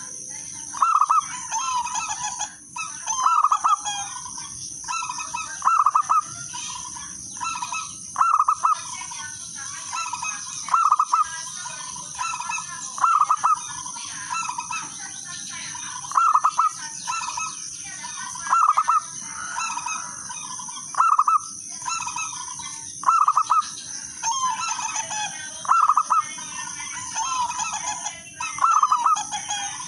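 Zebra dove (perkutut) cooing: short, rapid trilled phrases repeated every one to two seconds, over a steady high-pitched hum.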